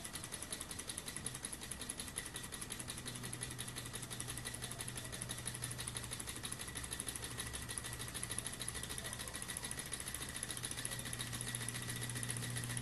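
Tarot beam-type Stirling hot-air engine running, its moving parts making a fast, even ticking clatter. A low steady hum comes in a couple of seconds in.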